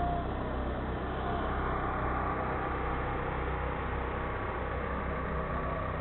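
Steady low rumble of motor vehicles running, with a faint steady tone above it.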